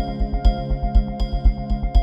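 Background music: sustained synthesizer chords over a steady low beat, about two strong beats a second.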